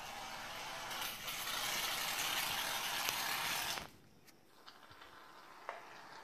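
Aerosol can of shaving cream spraying foam in one long hiss that cuts off about four seconds in, followed by a few faint clicks.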